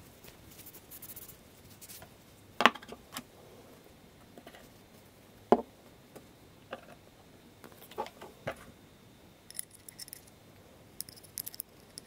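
Small steel knife parts handled on a wooden table: scattered clicks and light metal clinks as the stainless handle scales, pivot bushing and caged ball-bearing washers are wiped, picked up and set down, with two sharper knocks about two and a half and five and a half seconds in.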